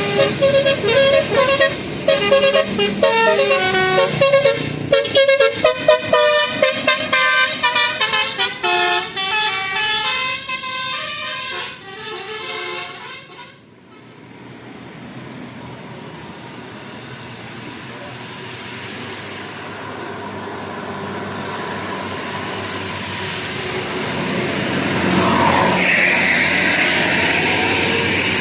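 Basuri telolet bus horn playing a fast, jumpy multi-note melody, its tones stepping up and down, cutting off abruptly about halfway through. Then a bus's engine and road noise build steadily louder as it approaches, with a short rising tone near the end.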